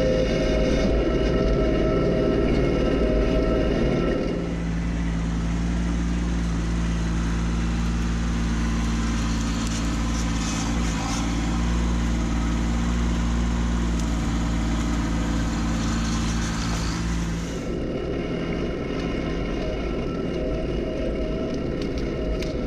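Kubota B2601 compact tractor's three-cylinder diesel engine running steadily. Its sound changes abruptly about four seconds in and again near the end.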